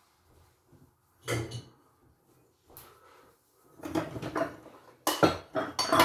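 Dishes and cutlery clinking and clattering in a dishwasher rack as they are handled. One sharp clink about a second in, then a run of knocks and rattles from about four seconds in, loudest near the end.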